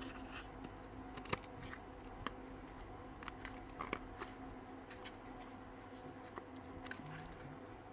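Faint, scattered clicks and light taps of small drill motor parts being handled and fitted together, over a steady low hum.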